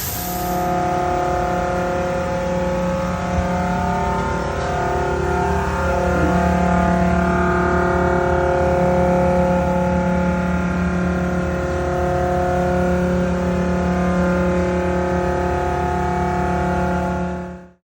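Mazak Nexus VCN-700D/50-II CNC vertical mill running, a steady whine of several fixed pitches that shifts slightly in strength and cuts off abruptly near the end.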